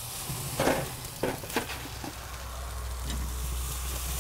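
Two thick ribeye steaks sizzling on the hot grate of a ceramic charcoal grill as metal tongs lift them off, with three sharp clacks of the tongs in the first two seconds. A low rumble comes up in the second half.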